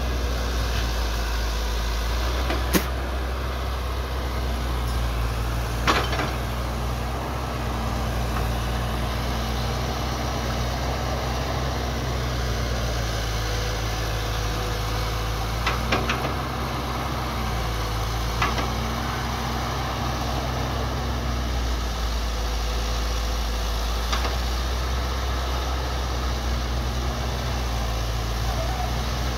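Hitachi hydraulic excavator's diesel engine running steadily at work, its note shifting slightly now and then. A handful of sharp clanks are spread through it.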